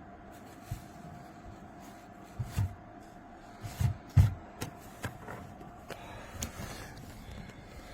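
Handling noise: a string of irregular low thumps and sharp clicks, the loudest about four seconds in, over a faint steady hum.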